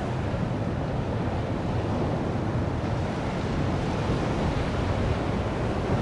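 Ocean surf: waves breaking and whitewater rushing, a steady noise with wind buffeting the microphone.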